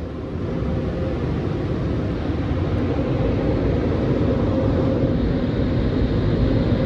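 Steady low roar of a touch-free in-bay car wash's machinery, muffled by the closed car cabin, with a faint steady hum over it.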